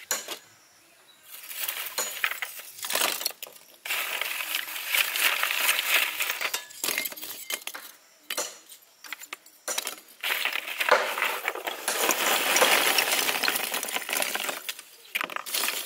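Lumps of wood charcoal clinking and clattering against each other and the metal as they are dropped by hand into a sheet-metal charcoal stove, in spells of clatter with short pauses between.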